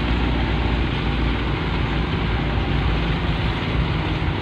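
Car driving slowly on a rough dirt road, heard from inside the cabin: a steady rumble of engine and tyres.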